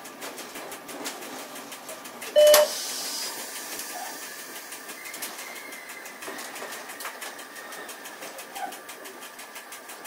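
Running noise inside the cab of a Piano Ribassato double-deck driving trailer on the move, with faint regular ticking. About two and a half seconds in, a single loud, short tone sounds for about a third of a second, followed by a brief hiss.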